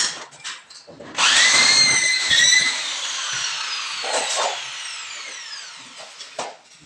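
Corded electric drill driving a screw through fibre-cement board into a metal stud. The motor starts suddenly about a second in, whines at a steady pitch for about a second and a half, then is released and its whine falls away over several seconds as it coasts down. A sharp click at the start and a couple of knocks later.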